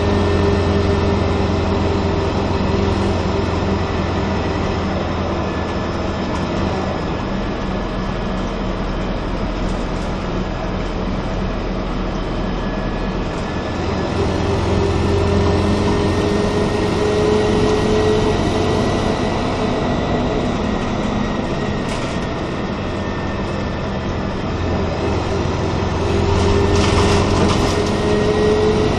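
Cabin ride noise of a 1996 Nova Bus RTS transit bus under way: a steady engine drone with a drivetrain whine that rises in pitch as the bus picks up speed, once around the middle and again near the end. A short rattle comes near the end.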